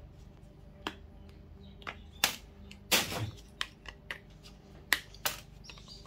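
Hand cutters snipping the metal pins off power plugs for scrap: about eight sharp, irregular clicks and snaps.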